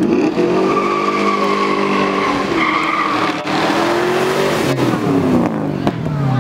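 Sports car launching hard off the start line: its engine revs up, with a gear change about two and a half seconds in, while the tyres squeal. The engine note then falls as the car goes past.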